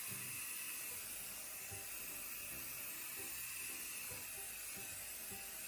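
Aerosol hairspray can hissing steadily as it sprays onto hair.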